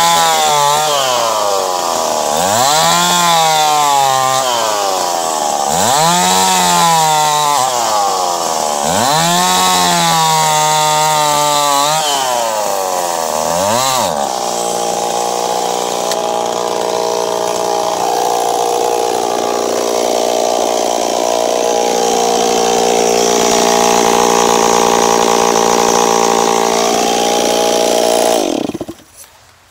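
Ported Stihl 026 two-stroke chainsaw sawing through a dead maple log. The engine revs up and falls back five times, about every three seconds, then runs held at high revs for about fifteen seconds. Near the end the revs drop away sharply.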